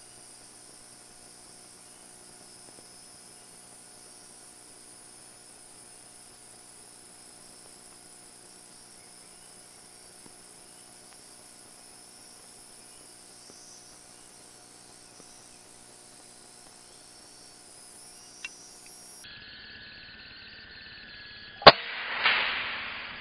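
A steady faint hum and hiss, then near the end a single sharp gunshot, followed half a second later by a noisy swell that dies away.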